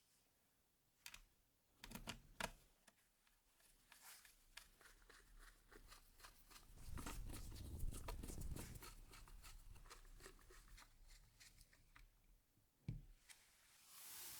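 Faint small clicks, taps and rubbing of keyboard parts being handled during assembly, with a denser stretch of handling noise about seven seconds in.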